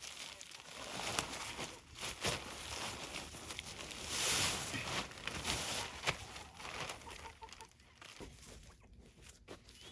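Scraping and rustling of a crumbly, compost-like fill being dumped and worked into holes in the ground, with a louder pouring hiss about four seconds in. Chickens cluck in the background.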